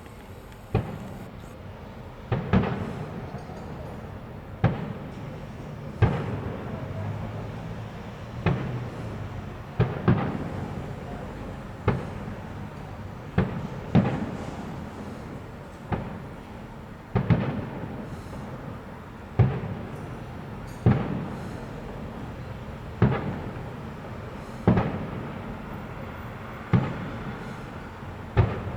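Aerial fireworks bursting in a steady string of sharp bangs, about one every one to two seconds. Each bang trails off in a rolling echo over a constant hum of background noise.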